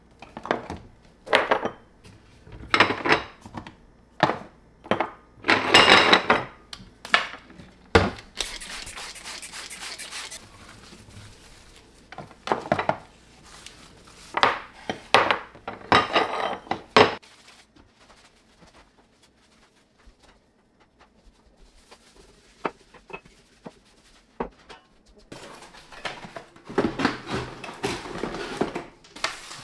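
Bottles and spice jars knocking and clinking as they are picked up and set down on a ceramic-tiled counter, with a second or two of fast, fine rattling about eight seconds in. Near the end, a cardboard box and its foam packing inserts being handled.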